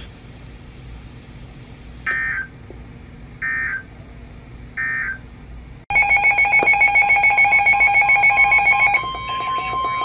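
NOAA weather radios picking up a new alert: three short bursts of SAME data tones, a little over a second apart, then about six seconds in the radios' electronic alarms start beeping loudly in a fast pulse. Near the end the steady NOAA Weather Radio warning alarm tone joins them. This is the signal that opens a new severe thunderstorm warning.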